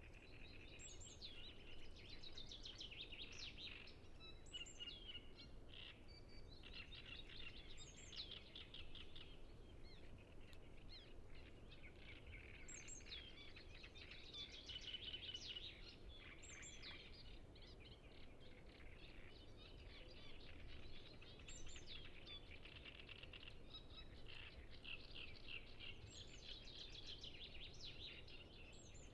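Great reed warblers singing in a reedbed: long runs of rapid, repeated chattering notes with short high notes every few seconds, over a steady low background hum.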